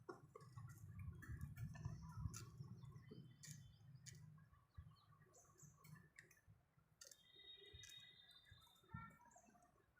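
Faint clicking and tapping from budgies, with a soft high chirp about seven seconds in.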